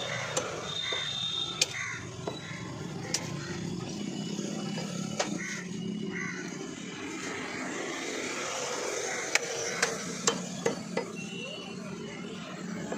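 Hands and a knife working a skinned goat carcass: scattered sharp clicks and taps, several close together near the end, over a steady low background hum.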